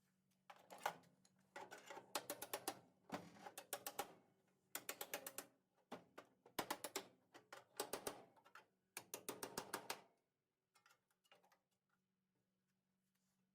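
Six bursts of rapid metallic clicking, each about a second long, from a tool working on the Bronco's sheet-metal body, over a faint low steady hum.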